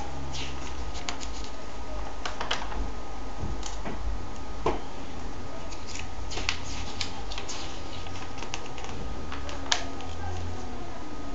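Glossy comic book pages being handled and turned by hand: scattered short paper crinkles and taps, with a sharper click about ten seconds in, over a steady low hum.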